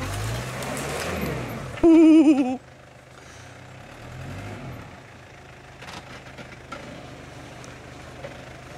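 Mitsubishi Pajero engine revving up and down under load as the 4x4 works over rough off-road ground. About two seconds in there is a loud, wavering pitched tone lasting under a second, then the engine drops to a quieter run with one more brief rev.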